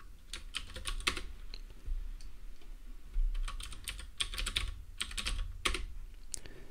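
Computer keyboard typing in short bursts of keystrokes with brief pauses between them.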